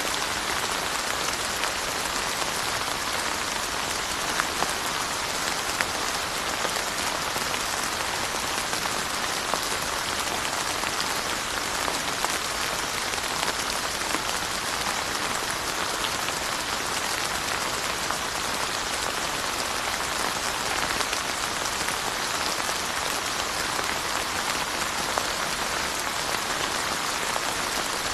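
Steady rain falling, an even hiss of rain on surfaces with many small distinct drop taps.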